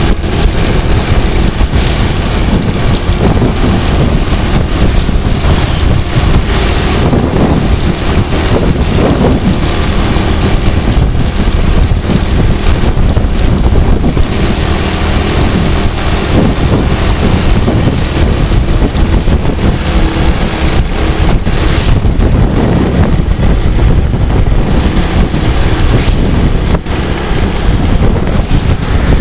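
Loud, steady wind noise buffeting the microphone, mixed with engine and road noise from a vehicle travelling along a paved road.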